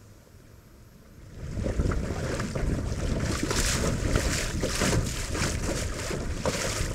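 Water rushing and splashing along the hull of a Melonseed skiff under sail, heard close from just above the waterline, with wind buffeting the microphone. It starts suddenly about a second in and then runs on in uneven surges.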